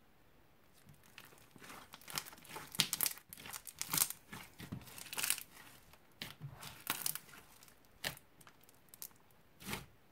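Crunchy foam-bead slime being squeezed, stretched and pressed by hand, giving irregular bursts of crackling and crunching with short pauses between them.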